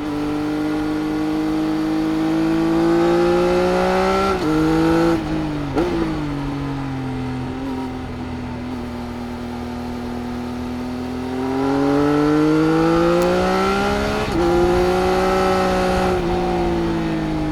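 Triumph Speed Triple RS inline-three engine through its Arrow exhaust. It pulls up through the revs with a quick upshift about four seconds in, shuts off with a short blip about six seconds in, and holds a steady lower note. It then accelerates again from about twelve seconds, shifting up once more before easing off near the end.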